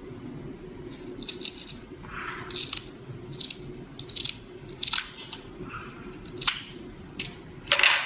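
Scissors snipping through the Kevlar aramid yarn of a fibre-optic cable: a series of short, sharp snips, about one or two a second, starting about a second in, the last near the end the loudest.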